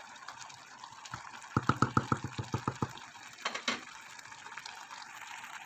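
Wooden spoon stirring a pot of simmering soup, knocking against the metal pot in a quick run of about ten knocks about a second and a half in, with another knock a little later.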